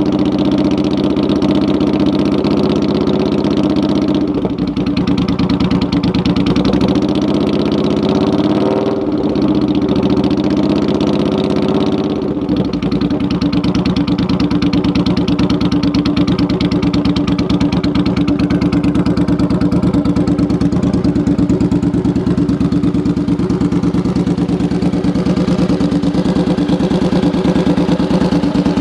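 Suzuki Boulevard C50's V-twin engine running through a non-baffled 2-into-1 race-tuned exhaust. It mostly idles, with the engine note shifting a few times in the first half before settling into a steady idle.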